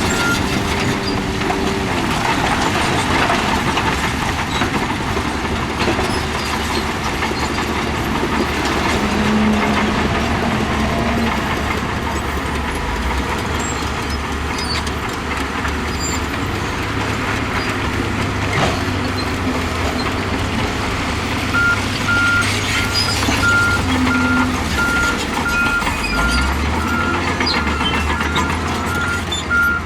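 Heavy earthmoving machinery working, its diesel engine running under load with steady noise. About two-thirds of the way in, a reversing alarm starts beeping at about two beeps a second.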